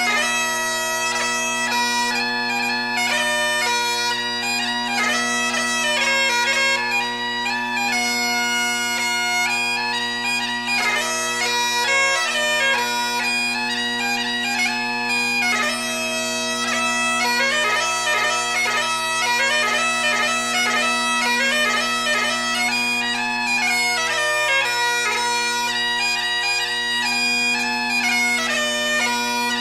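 Bagpipe music: a melody played over steady, unbroken drones.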